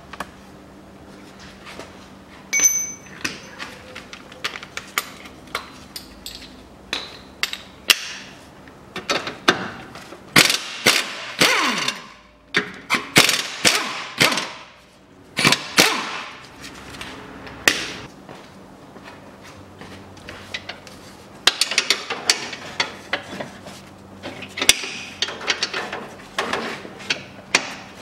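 Hand ratchet clicking in short irregular runs, with metallic clinks of socket and tool, as the rear engine mount's two nuts are undone from the subframe.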